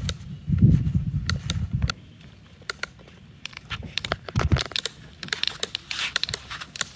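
Plastic toy excavators and trucks scraping and scooping in sand, with many small clicks and rustles and a dull thump about four and a half seconds in. A low rumble, the loudest sound, fills the first two seconds and stops.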